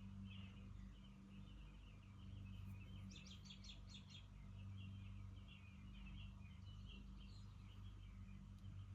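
Faint chirping and twittering of a small bird, with a quick run of about six high chirps a little past three seconds in. A steady low hum lies underneath.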